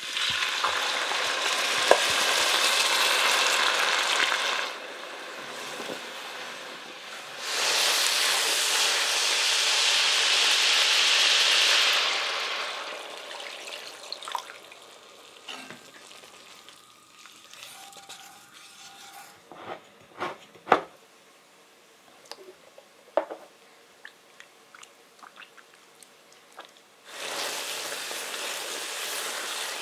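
Sizzling and hissing as white wine is poured into a hot enamelled cast-iron dutch oven of browned ground meat to deglaze it, loud for about four seconds and again for about four seconds. Then a quieter stretch of wooden-spoon scrapes and taps against the pot as milk is stirred in, and steady sizzling again near the end.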